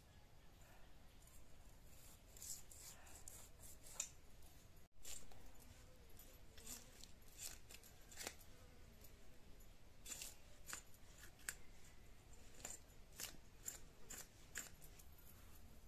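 Irregular scrapes and clicks of snakehead fish being scaled and cut against a boti blade, a curved blade fixed upright on a footboard, with bottle gourd being cut on a second boti. The sounds are faint and come at uneven intervals.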